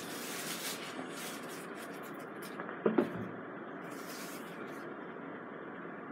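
Thin plastic shrink-wrap crinkling and rustling in the hands in short patches, with two light knocks close together about three seconds in as the cardboard phone box is handled. A steady hiss runs underneath.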